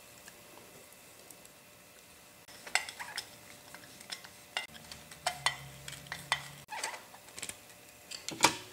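Small screws and a cooling fan duct being fitted into a cast motor end bell: scattered metal clicks and clinks after a quiet start, the sharpest near the end.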